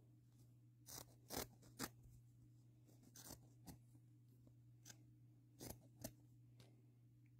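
Scissors slicing through fleece blanket fabric held taut against the blade: a string of faint, short snips at irregular intervals, the clearest about a second and a half in and again near six seconds.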